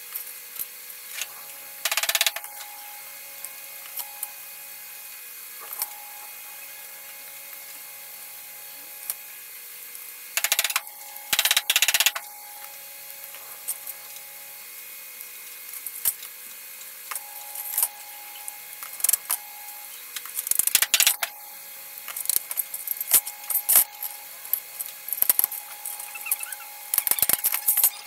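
Tools at work on a sign-making job in short, irregular scraping and clicking bursts, the longest about a second and a half, over a steady background hum.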